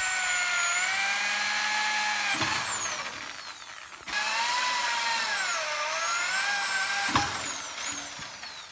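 Electric drill boring into a metal bumper mounting bracket on an ATV: a high motor whine whose pitch sags as the bit bites, winding down partway through. It starts again for a second run that dips and recovers, with a sharp click, then winds down near the end.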